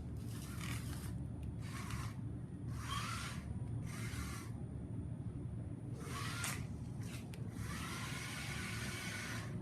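Small robot car's DC gear motors whirring in short spurts as the car drives and turns: about six bursts of roughly half a second each, with the last running for about two seconds.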